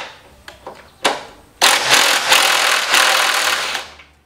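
Cordless impact driver running, giving a short trigger blip about a second in, then a steady run of about two and a half seconds that stops near the end, while a fastener is worked on the truck's radiator core support.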